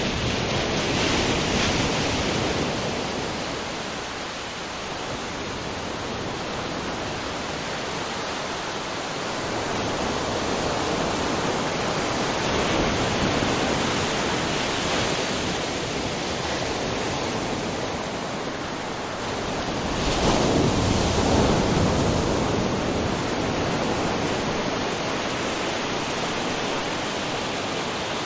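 Ocean surf: a continuous wash of waves, with slow swells as waves build and break, the biggest about two-thirds of the way through.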